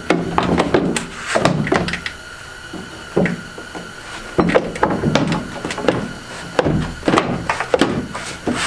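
Redrock 4x4 plastic snorkel body knocking and bumping against a Jeep's fender and windshield pillar as it is held up and test-fitted: a run of irregular knocks and thuds.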